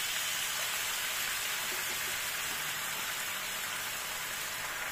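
Freshly washed, still-wet red spinach leaves sizzling steadily in hot oil in a frying pan. The water left on the leaves from washing hissing as it hits the oil.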